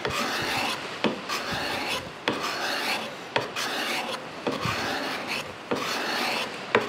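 Steel card scraper, cut from an old handsaw blade, scraping a sapele board in repeated push strokes of about one a second, each a dry rasping scrape. The sharpened, burred edge is rolling up fine shavings rather than dust, the sign of a sharp scraper.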